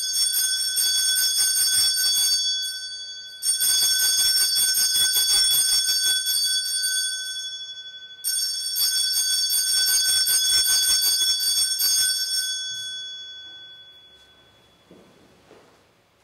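Altar bells, a cluster of small hand bells, shaken in three rings: a short first one, then two longer ones, the last fading away over a couple of seconds. This is the signal for the elevation of the consecrated host.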